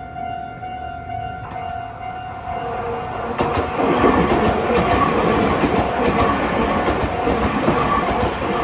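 A Meitetsu Seto Line electric train passing over a level crossing, its wheels clattering over the rail joints. It builds from about two and a half seconds in and is loudest from about three and a half seconds to near the end. The crossing's warning signal keeps sounding as a steady tone underneath.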